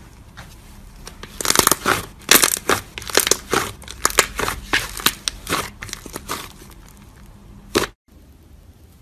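Thick yellow slime squeezed and pressed by hand, giving a rapid run of sharp crackles and pops that starts about a second and a half in and thins out after about six seconds, with one last sharp pop near the end.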